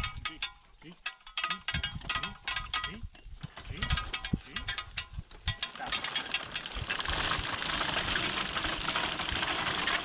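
Horse-drawn cutter-bar mowing machine clattering as it cuts pasture grass, a rapid run of metallic clicks from its gearing and reciprocating knife. After about six and a half seconds the clicking gives way to a steady hiss.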